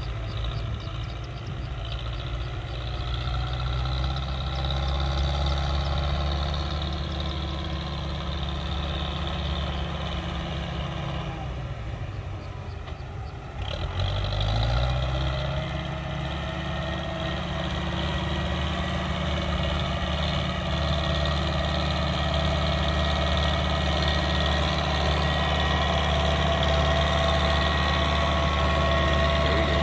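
Belarus MTZ tractor diesel engine running steadily as it pulls a trailer up a gentle slope, growing louder as it comes closer. About halfway through the sound dips briefly, then the engine note rises and settles.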